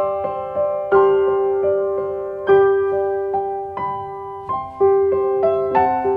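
Background piano music: a slow, gentle melody of struck notes, a new note about every second, each ringing and fading away.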